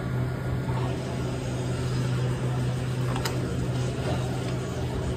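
Steady low mechanical hum, with a faint click about three seconds in.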